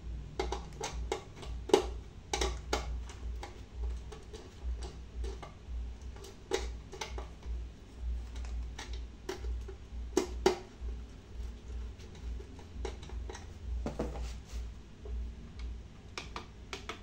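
Irregular clicks and taps as a gloved hand handles the wires at a car amplifier's screw terminals, over a steady low hum.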